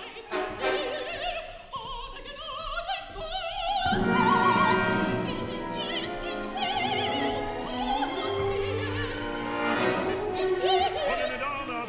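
Opera orchestra, strings prominent, playing under singing voices with wide vibrato. A rising figure climbs from about two seconds in and leads into a louder passage at about four seconds.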